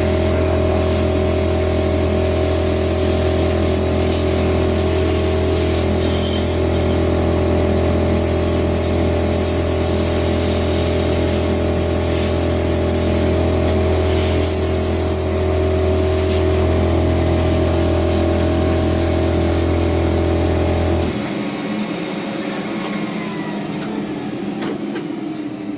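Depowdering station running: a steady motor hum and hiss, broken by repeated blasts of compressed air blowing loose powder off a green 3D-printed sandstone part. About 21 seconds in the motor is switched off and winds down with a falling whine.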